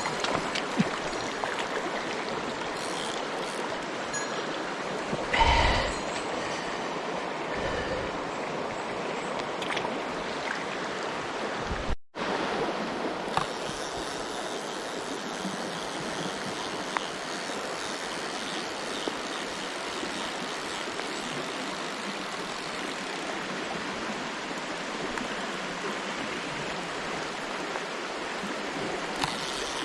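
Mountain stream water rushing steadily over rocks. A short louder knock with a low rumble comes about five seconds in, and the sound cuts out for an instant about twelve seconds in.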